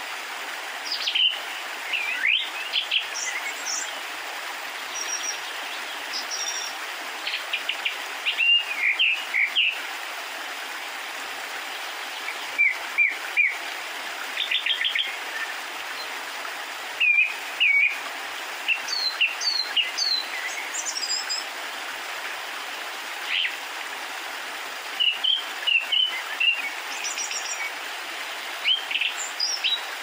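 Birds chirping, short quick calls coming in scattered groups over a steady background hiss.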